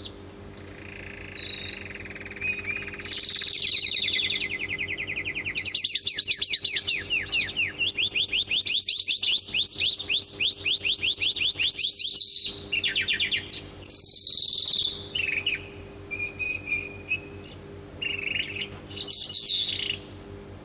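A caged calandra lark and a canary singing against each other: long, fast, high trills and rolling runs, some rising in pitch. After about the middle the song breaks into shorter, scattered phrases with pauses between them.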